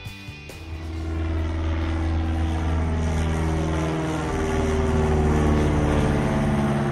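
Propeller airplane flying low overhead, its engine drone swelling about a second in and then holding loud and steady as it passes.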